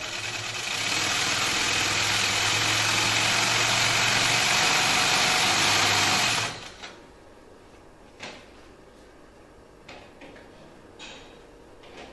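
Hightex post-bed heavy-duty sewing machine running steadily as it stitches thick black material. It picks up speed about a second in and stops after about six and a half seconds, and a few faint knocks follow.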